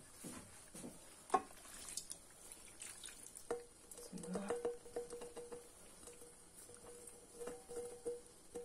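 Cooked eggplant cubes tipped from a pot into a large stone-coated frying pan: soft wet pattering and sliding of the pieces, with a few light knocks of the pot against the pan.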